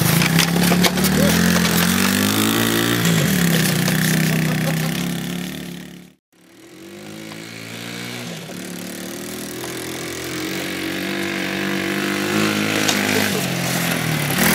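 110cc ATV engine revving up and down as it tows a wagon, its pitch rising and falling. The sound cuts out briefly about six seconds in, then returns and grows steadily louder as the quad comes closer.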